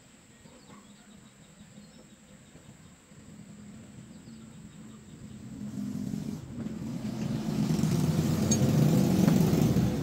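A low rumble that builds steadily from about halfway through and is loudest near the end.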